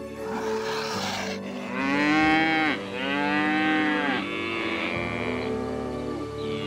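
An animal calling: a breathy sound, then two drawn-out calls about two seconds in, each rising and then falling in pitch.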